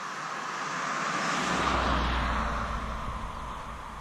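A car driving past: its noise swells to a peak about two seconds in, with a deep rumble at its loudest, and then fades away.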